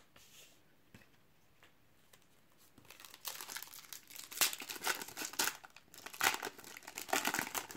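Panini Ekstraklasa 2015/16 trading-card sachet being torn open by hand, its foil wrapper crinkling and tearing in irregular bursts from about three seconds in, after a few faint clicks.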